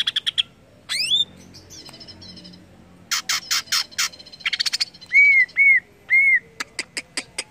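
Greater green leafbird (cucak ijo) singing in varied bursts: sharp chirps and a rising sweep, then fast runs of sharp chirps, then three loud, clear arched whistles a little past halfway. A quick run of sharp clicking notes follows near the end.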